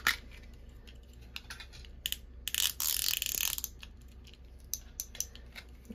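Handheld plastic tape runner adhesive dispenser being worked: scattered plastic clicks, and about two and a half seconds in a scratchy rasp lasting about a second, as its jamming adhesive refill is wound and fiddled with to make it catch up.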